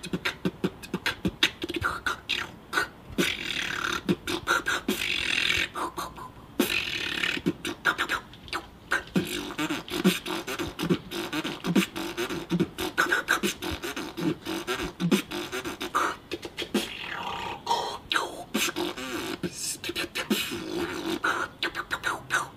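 A man beatboxing: a fast, dense run of percussive mouth clicks and snares over a low hummed tone.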